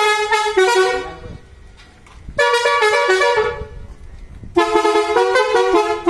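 A multi-tone air horn fitted to a tractor plays a tune in short stepped notes. It sounds in three phrases of about a second each, with short pauses between them.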